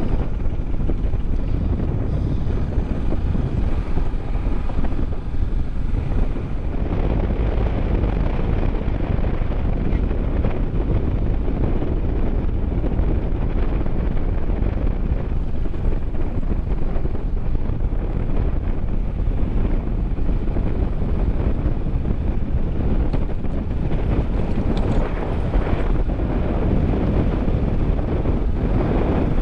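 Wind rushing over the microphone with a Suzuki DR650's single-cylinder engine running steadily underneath, at riding speed.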